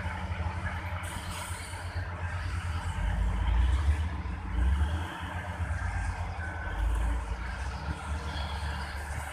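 Heavy dump truck's diesel engine running with a steady low rumble while its bed is raised, swelling louder around three to five seconds in and again near seven seconds.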